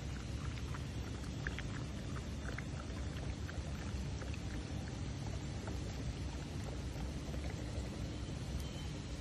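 Dog lapping water from a plastic travel-bottle trough: a run of quick, faint wet laps through roughly the first half, which then stop. A steady low rumble lies under it throughout.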